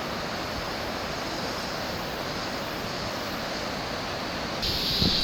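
Steady rushing roar of Fukiware Falls, a broad waterfall on the Katashina River. Near the end it turns abruptly louder and hissier.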